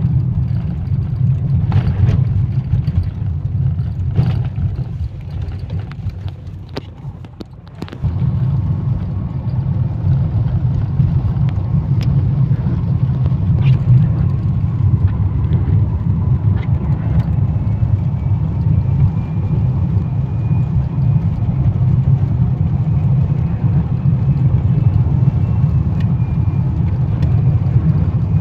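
Car engine and road noise heard from inside the cabin while driving on a wet road: a steady low rumble that fades for a few seconds and comes back abruptly about eight seconds in, with a faint steady whine and a few scattered clicks over it.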